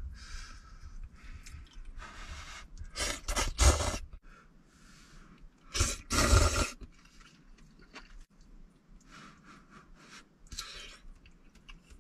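A person eating noodles close to the microphone: irregular chewing and mouth sounds, with two louder bursts about three and six seconds in.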